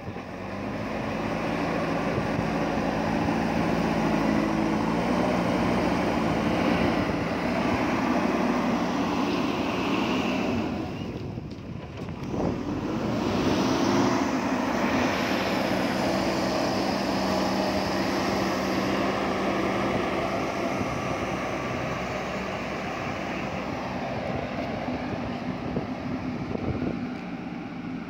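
JCB backhoe loader's diesel engine working under load as its front bucket pushes gravel and soil. The engine note dips briefly about eleven seconds in, then picks up again, and grows fainter near the end as the machine moves away.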